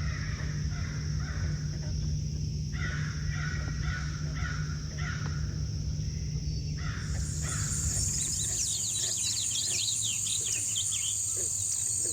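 Frogs calling in runs of repeated raspy croaks over a steady high insect-like drone. About seven seconds in the sound changes abruptly to a dense chorus of short high chirps over a higher steady trill.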